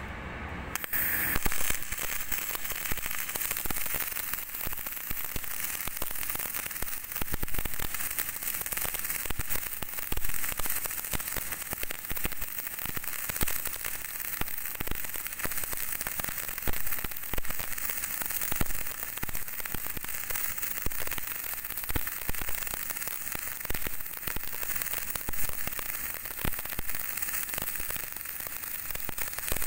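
MIG welding arc crackling and sizzling steadily, striking about a second in and running on without a break.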